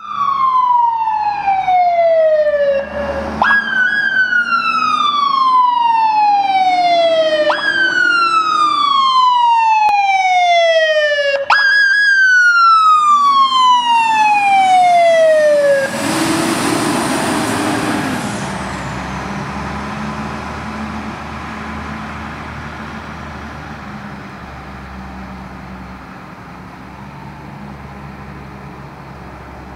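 Fire rescue truck's siren wailing: four times the pitch jumps up sharply and glides slowly down. About halfway through the siren stops and the truck passes close with a rush of engine and road noise, which then fades as it drives away.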